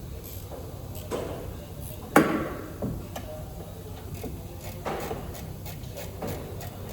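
A series of knocks and clatters, the loudest about two seconds in with a short ringing tail, over a low steady hum.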